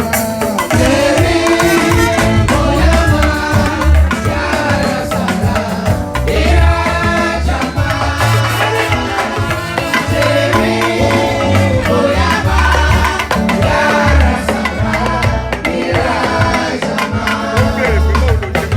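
Voices singing a processional hymn over drums and other percussion keeping a steady beat.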